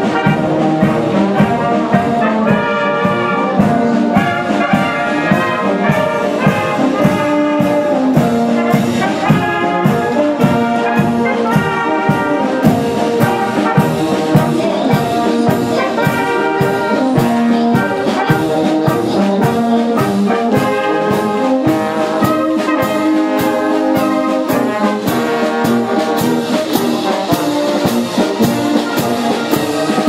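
Tyrolean village brass band playing a march on the move: tubas, flugelhorns, trumpets and clarinets over a steady beat of about two strokes a second.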